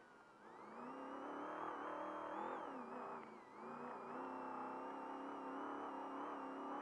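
Trophy truck's engine heard from inside the cab, revving up about half a second in and pulling steadily under load. It dips briefly about three seconds in, then climbs again.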